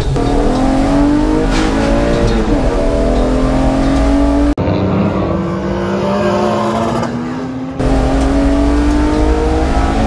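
BMW E36's M54B30 straight-six engine accelerating hard on track, rising in pitch with two brief drops for upshifts in the first few seconds. The sound breaks off abruptly twice, at cuts in the footage.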